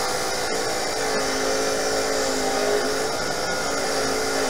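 Bench grinder wheel running with a welded stainless steel fitting held against it to polish it: a steady motor hum and grinding noise whose pitch wavers slightly as the part is worked.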